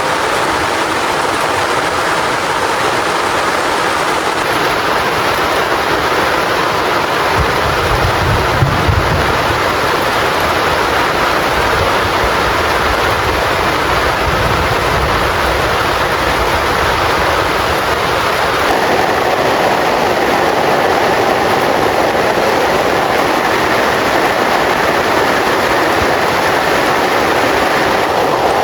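Heavy rain falling in a steady, dense downpour. A deep low rumble swells underneath from about seven seconds in and fades out several seconds later.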